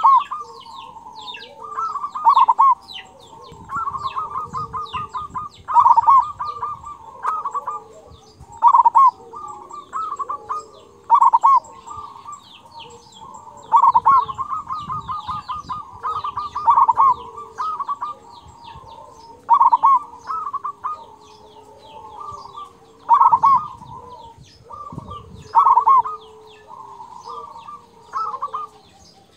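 Zebra dove (perkutut) singing its cooing song: a run of quick staccato coos that ends on a loud 'kung' note, repeated about every two to three seconds.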